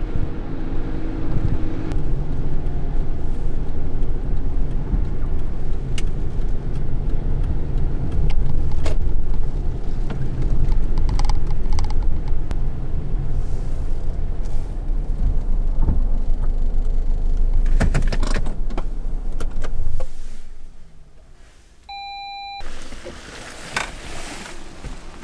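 Light truck's engine and road noise heard inside the cab, a steady low rumble that dies away about twenty seconds in as the vehicle stops and the engine is switched off. A short single beep follows a couple of seconds later.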